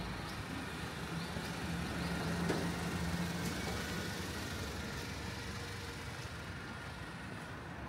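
Wet-street traffic in the rain: a vehicle engine hums, loudest two to three seconds in, over a steady hiss of rain and traffic.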